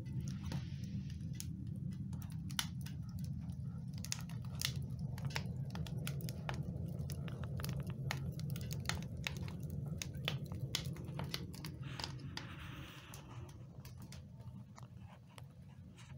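Wood fire crackling in a cast-iron wood stove: irregular sharp pops and snaps over a steady low rumble, growing quieter near the end.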